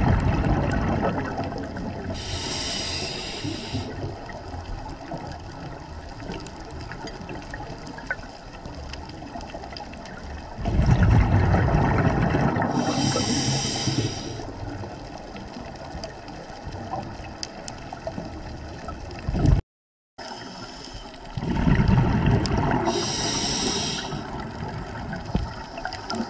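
Scuba diver breathing through a regulator underwater: a loud rush of exhaled bubbles about every ten seconds, three times, each followed a couple of seconds later by a short high hiss of the regulator.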